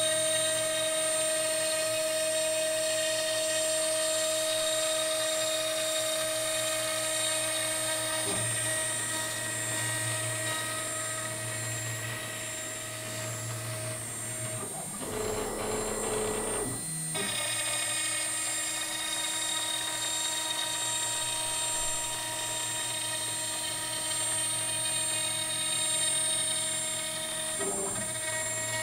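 Homemade CNC router's spindle running with a steady whine while its bit cuts into a wooden board. The sound changes for about two seconds around halfway.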